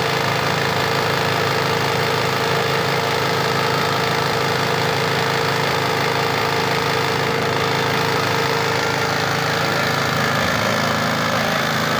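MKG3500 3500 W gasoline generator's engine running steadily with the choke off, its panel voltmeter showing about 242 V output.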